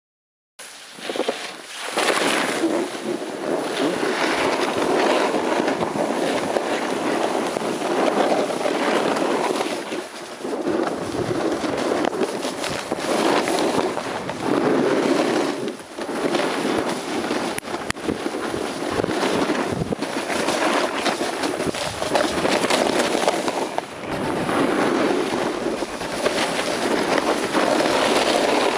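Wind buffeting the camera microphone and snowboards sliding and scraping over snow as the camera follows a rider downhill, a rushing noise that surges and eases every few seconds. It begins about half a second in.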